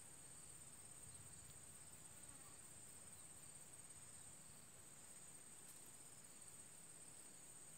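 Faint, steady chorus of insects, one continuous high-pitched trill that holds without a break.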